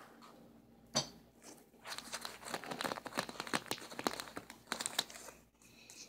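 Flexible plastic dryer tube crinkling and crackling as a hand squeezes and rustles its open end: one sharp crackle about a second in, then dense crinkling for about three seconds.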